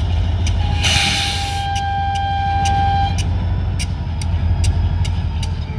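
EMD SD40-2 diesel locomotives running with a steady low rumble. About a second in comes a short hiss of air, with a steady high squeal lasting about two seconds. Faint ticks come about every half second.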